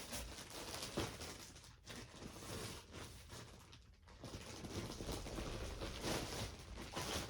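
Rustling and crinkling of clothing and plastic packaging being handled, in small irregular scrapes and crackles with no pause.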